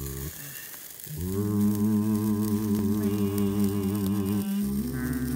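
Low humming in long held notes with a slight waver: a short dip in the first second, one long note, then a step up to a higher note near the end.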